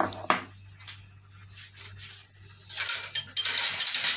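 Glass bowl of flour set down on a marble countertop: two sharp glassy clinks at the start, then a rustling, scraping noise in the last second or so.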